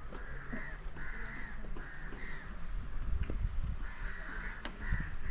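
Crows cawing again and again, a string of short harsh calls, over a steady low rumble, with a single sharp click near the end.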